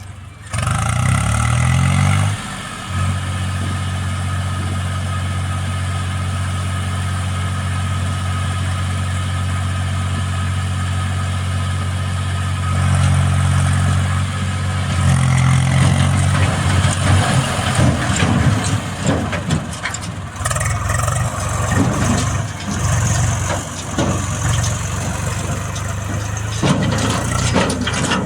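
Heavy diesel engine revving up about half a second in, then running steadily. From about halfway on, it revs up and down repeatedly under changing load.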